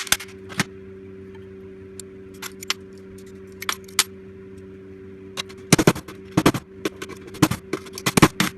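Sharp metallic knocks and clinks of a small transformer's steel laminations being struck and worked loose, scattered at first and then coming fast in a cluster over the last three seconds, over a steady low hum.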